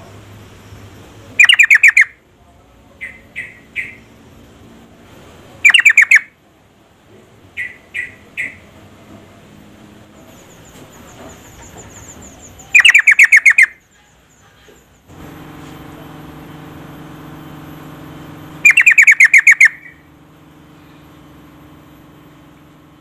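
Female yellow-vented bulbul (trucuk) calling: four loud bursts of rapid chattering notes several seconds apart. Between the first bursts come a few shorter three-note chirps. A steady low hum comes in for several seconds in the second half.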